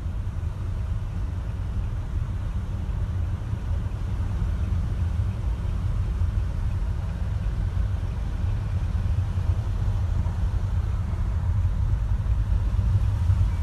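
Steady low rumble of a car driving slowly in traffic, engine and road noise heard from inside the vehicle, growing a little louder near the end.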